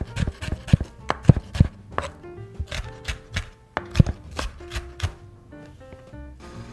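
Chef's knife slicing garlic cloves and then green chili peppers on a wooden cutting board: quick, irregular knocks of the blade on the wood, a few a second, with soft background music.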